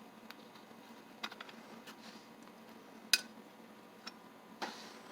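A few faint, sparse metallic clicks and taps as parts inside an antique Russwin mortise lock are worked loose by hand, with one sharper click a little past three seconds in.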